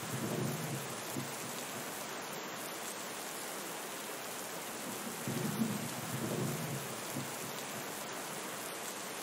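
Steady heavy rain falling, with low rolls of thunder, one at the start and another about five seconds in.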